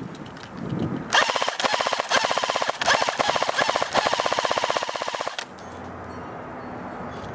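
ICS L86A2 LSW airsoft electric gun (AEG) firing on full auto: rapid, evenly spaced cycling clicks in several back-to-back bursts, starting about a second in and stopping a little past five seconds in.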